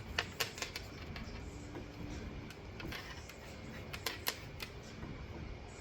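A paint sponge dabbing onto the painting surface to make a grainy sand texture: irregular light taps, several in quick succession in the first second and a couple more about four seconds in.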